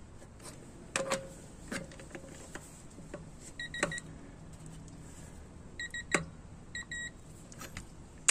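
Digital torque adapter beeping in short high beeps, three in a row about halfway through and then two pairs, as a wheel lug nut is torqued with a long ratchet handle: the signal that the set torque of about 40 ft-lb is reached. Sharp metallic clicks and clinks of the socket and handle sound in between.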